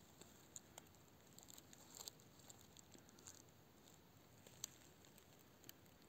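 Near silence with faint, scattered crackles of dry pine needles and forest litter as a hand twists a porcini mushroom out of the moss.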